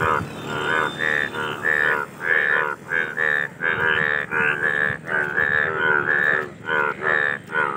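Indian bullfrogs calling in a chorus: loud, overlapping croaks, about two a second, the males' mating calls.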